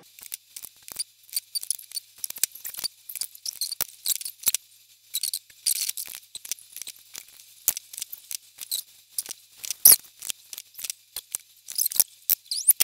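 Irregular small clicks and ticks, several a second, from hands working a plastic hook and rubber bands on a plastic rubber-band loom's pegs, with one sharper click about ten seconds in.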